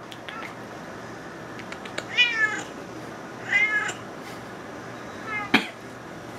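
Domestic cat meowing to beg for salmon: two longer meows about a second and a half apart, then a short one near the end that starts with a sharp tap.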